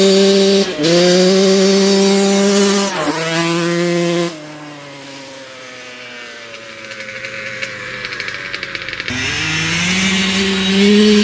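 1996 Yamaha YZ125's single-cylinder two-stroke engine revving: held high through the first four seconds with a couple of brief dips, falling back to a lower, quieter idle, then revved up again about nine seconds in.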